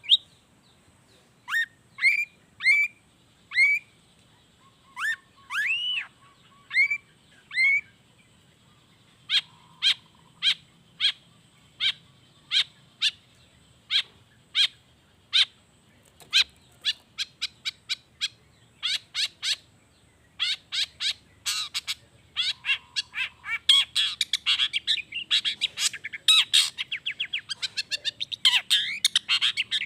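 Long-tailed shrike (cendet) singing a song laced with imitations of other birds. It opens with a string of short curved whistled notes, moves to sharp downward-sweeping notes about two a second, and breaks into a fast, dense chattering run about two-thirds of the way in.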